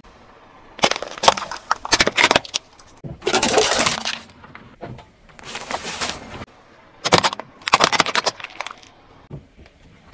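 Car tyre rolling over small objects on asphalt and crushing them: clusters of sharp cracks from plastic breaking about a second in and again around seven seconds, with two longer, noisier crunches in between.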